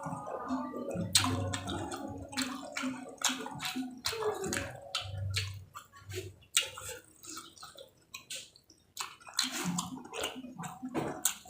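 Close-miked eating: irregular wet crunches and mouth clicks of someone chewing raw vegetables with rice.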